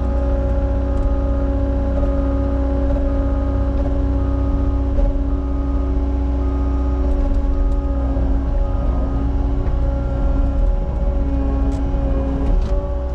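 Cat 279 tracked skid steer working, its diesel engine running with a steady low rumble and a constant whine on top.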